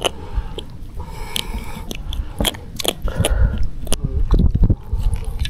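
Irregular clicks, taps and scuffs from handling a freshly caught trevally, over a steady low rumble.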